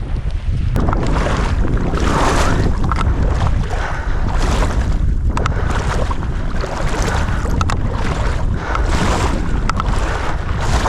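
Wind buffeting the microphone in a steady low rumble, with irregular surges of swishing noise every second or two.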